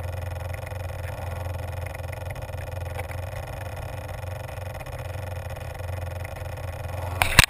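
Steady low rumble on the model plane's onboard camera microphone, then loud irregular knocks and rattles near the end as the plane and camera are handled.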